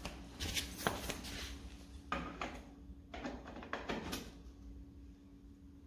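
Faint handling noises of hands working on a bicycle crankset: a few short rubbing and scraping strokes in the first four seconds, over a faint steady hum.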